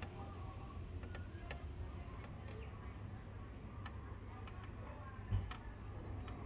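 Light scattered ticks and clicks from hands handling a wooden axe handle and axe head, over a low steady rumble, with one dull thump a little past five seconds in.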